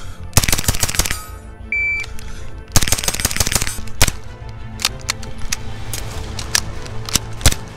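MP5-pattern submachine gun firing two short full-auto bursts in the first half, then a string of separate single shots, a few a second, with background music underneath.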